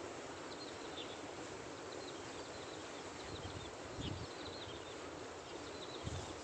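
Outdoor ambience: a steady hiss with small birds chirping over and over, and two soft low thuds about four and six seconds in.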